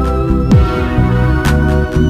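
Background electronic music with a deep bass line and held synth notes, a falling bass sweep about half a second in, and sharp hits at about half a second and a second and a half.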